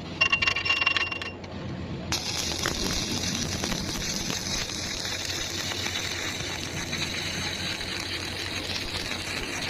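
A brief high ringing sound in the first second, then a stick-welding arc crackling and hissing steadily as a weld bead is run.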